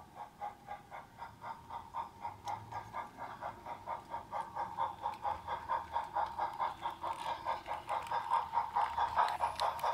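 Sound module of a G-scale Harz Mallet 99 5901 model steam locomotive giving a steady beat of steam chuffs, about four a second, growing louder as the locomotive approaches.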